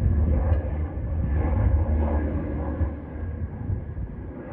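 Twin-engine turboprop airliner climbing away after takeoff: a steady low engine and propeller drone that fades as the aircraft draws off.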